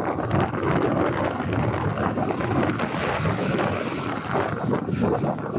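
Wind buffeting the microphone of a moving motorcycle, a gusty rushing noise with the motorcycle's engine and road noise underneath.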